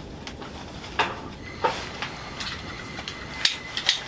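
Several sharp clicks of a red utility lighter being triggered at the burner of an old Coleman propane stove, trying to light it. The clicks are irregularly spaced, with two close together near the end, and the burner has not yet caught.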